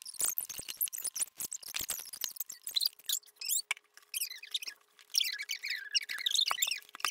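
Homemade glow-in-the-dark slime being stretched and squeezed by hand. It makes rapid sticky clicks and pops at first, then quick high squeaky chirps through the second half.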